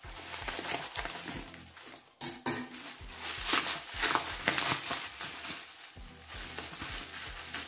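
Plastic packaging and bubble wrap being unwrapped by hand: irregular crinkling and rustling, with sharper crackles about three to four seconds in.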